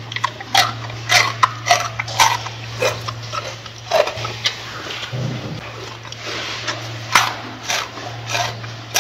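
Gorilla chewing lettuce, with irregular crunches about two or three a second.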